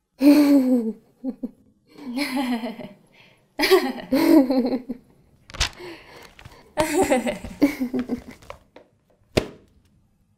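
Young women laughing in several bursts, with two sharp knocks in between, about five and a half and nine seconds in.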